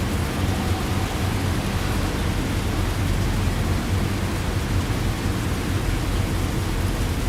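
Heavy rain falling steadily as an even hiss, with a constant low rumble underneath.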